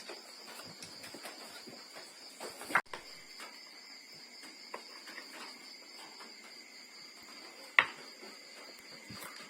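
Steady high-pitched insect chirring, with a second, lower insect tone joining about three seconds in. A few light knocks are heard over it, the sharpest one near the end.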